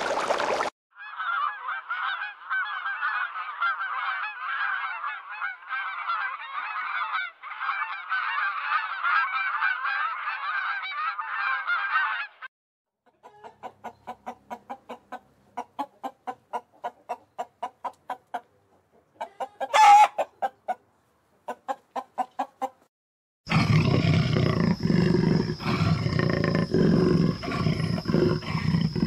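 Fowl calling: a long stretch of dense, overlapping chatter, then a run of short calls repeated two or three times a second, with one loud call near the middle. A different, lower and rougher animal sound with a faint high whine starts about five seconds before the end.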